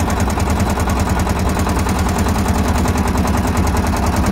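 A boat's engine running steadily, with a rapid, even chugging.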